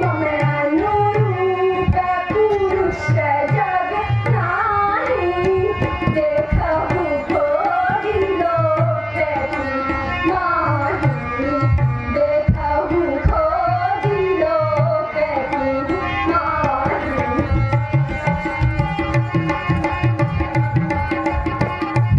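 Indian music with tabla drumming keeping a steady beat under a winding melody.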